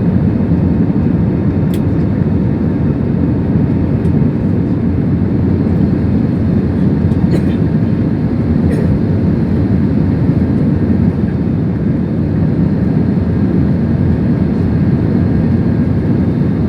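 Airbus A320 airliner heard from inside the cabin during takeoff: a steady, loud rumble of engines and airflow that holds even throughout, with a few faint ticks.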